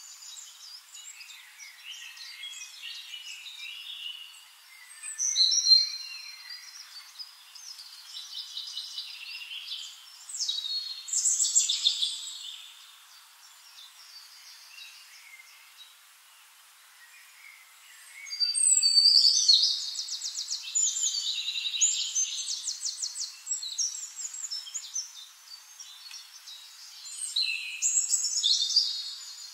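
Small birds singing and calling: varied high chirps, whistles and trills coming and going, with a fast rattling trill about 19 seconds in.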